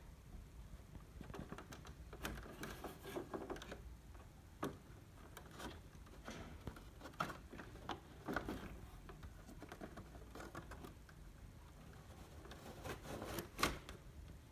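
Scattered small plastic clicks, taps and rubs from hands working the air filter out of a split air conditioner's indoor unit, at irregular intervals, with a louder click near the end.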